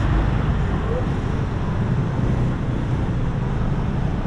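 Steady city street traffic noise: cars and motorcycles running close by, with a heavy low rumble.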